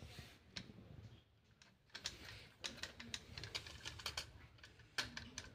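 Light plastic clicks and rattles as a toy fire truck's extendable plastic ladder is raised and pulled out by hand, in scattered little clusters, with the sharpest click near the end.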